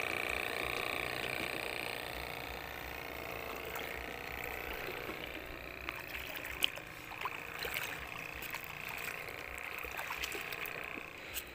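Shallow seawater sloshing and trickling around someone wading over rocks, with scattered small splashes and clicks in the second half.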